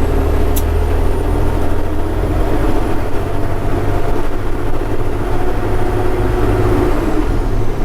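Sterling semi truck's diesel engine pulling steadily under load up a grade, heard from inside the cab as a constant low rumble, with the engine cooling fan engaged.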